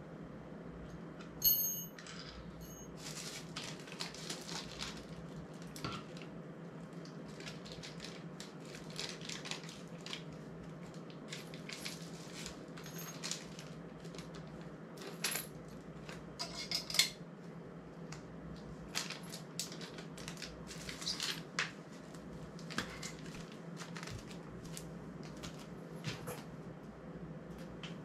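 Metal camera-mount parts of a YC Onion Nut Q1 quick-release system clicking and clinking as they are handled and fitted together. There is a sharp metallic clink with a brief ring about a second and a half in, then scattered clicks, and a steady low hum underneath.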